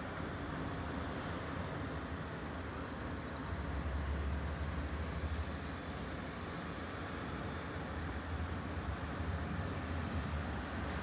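City street traffic: a steady hum of road noise with the low rumble of vehicle engines, swelling about four seconds in.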